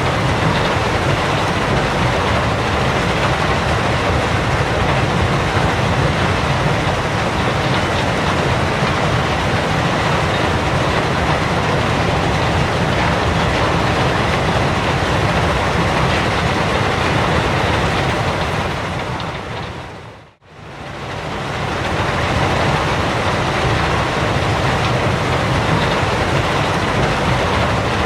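Gravel pit ambience: a loud, steady, dense mechanical noise with faint steady tones through it, typical of quarry machinery. About twenty seconds in it fades down to near silence and swells back up over a couple of seconds.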